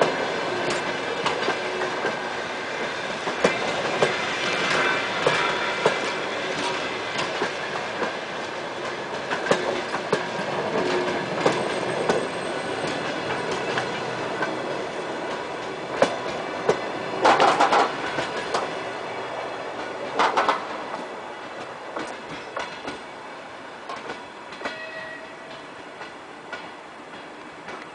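Passenger train coaches rolling past, their wheels clicking over the rail joints, with a couple of louder metallic rattles a little past the middle. The sound fades as the last coach moves away near the end.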